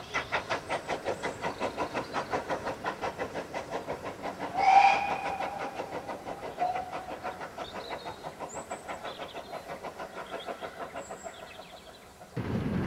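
GWR 0-4-2 tank engine No. 1450 pulling away with its autocoach: steady exhaust chuffs, about five a second, fading as the train draws off. A short blast on the locomotive's whistle about four and a half seconds in.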